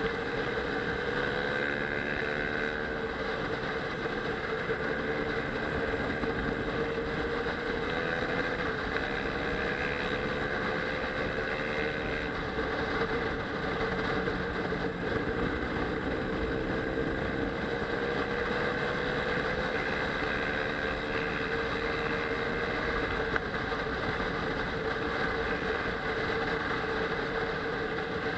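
Kawasaki ER-6n's parallel-twin engine running at riding revs, its pitch rising and falling gently with the throttle, over steady wind noise on the helmet-mounted microphone.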